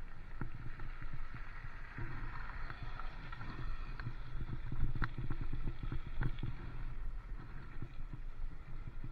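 Wind rush and road rumble on a bicycle-mounted camera riding along a wet tarmac lane, with frequent short rattling knocks from the bike and its mount over the bumps.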